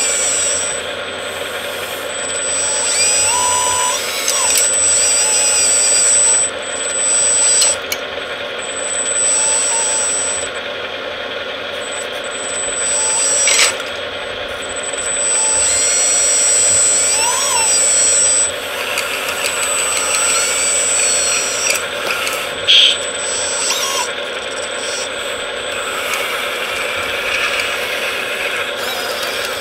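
Electric hydraulic pump of an RC scale Bobcat compact track loader running steadily with a high whine, its pitch rising and falling in short glides as the arm and grapple move. A sharp clatter about thirteen and a half seconds in as the wooden logs drop into the container.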